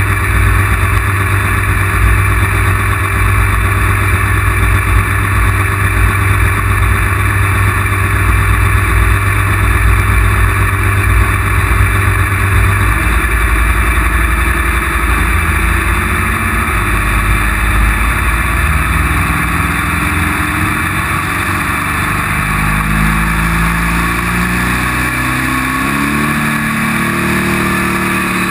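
Pulling tractor's engine heard up close from its roll cage, running loud and hard. About halfway through the note changes, and over the last dozen seconds its pitch steps up and down.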